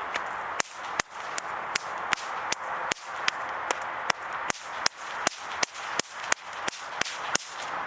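Bullwhip cracked over and over in a steady, even rhythm, nearly three sharp cracks a second, as in a continuous cracking routine.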